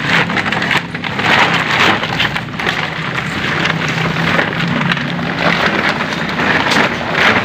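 Dense rustling and crackling as dry tomb debris and rotted cloth are shaken into a plastic sack, with many small pattering ticks of falling bits.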